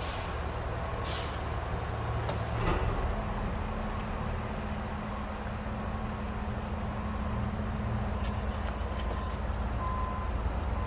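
Paper brochure pages being handled and turned, a few short papery swishes, over a steady low rumble.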